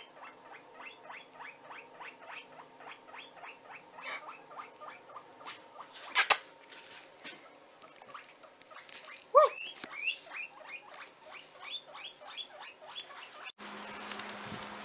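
Guinea pig squeaking in a long, even series of short calls, about three a second, with one louder, longer call about nine seconds in. A sharp click comes about six seconds in, and near the end the calls stop as steady outdoor noise takes over.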